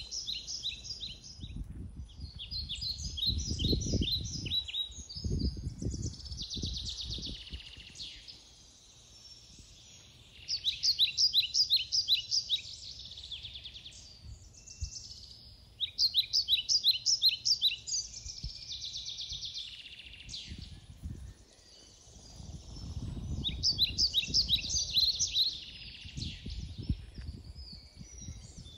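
A songbird singing short phrases of rapid, repeated high notes, a phrase every few seconds, with a low rumble coming and going underneath.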